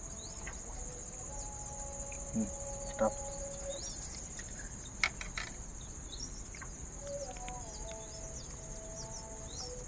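Insects droning steadily at a high pitch, with scattered short bird chirps and a few sharp knocks.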